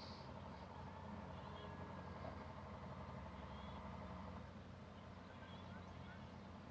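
Faint outdoor ambience: a steady low rumble with a few faint, short bird-like chirps.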